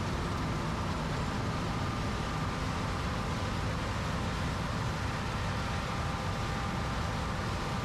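Heavy diesel farm machinery running steadily: a low engine drone with a faint, steady high whine over it.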